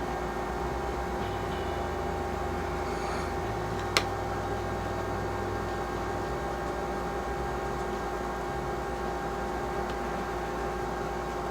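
Steady electrical hum with a low rumble underneath, and one sharp click about four seconds in.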